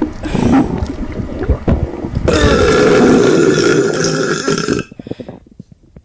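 A person burping: uneven belching at first, then a long, drawn-out burp on a steady pitch from about two seconds in that breaks into a low rattle and dies away near the end.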